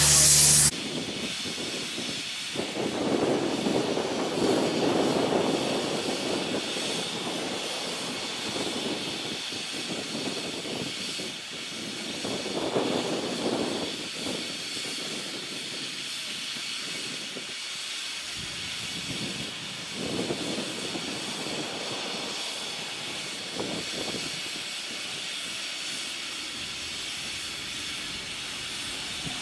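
A loud, close hiss of steam cuts off sharply within the first second. After that a narrow-gauge steam locomotive keeps up a steady hiss of steam, with a lower rumble that swells and fades several times.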